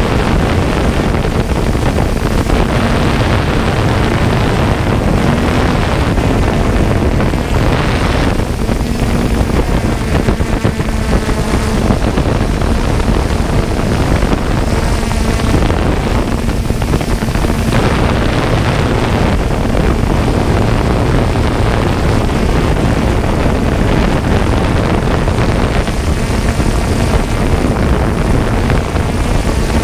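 Multirotor drone's electric motors and propellers heard through its onboard camera's microphone: a loud, steady whir with a faint low hum, mixed with wind buffeting the microphone.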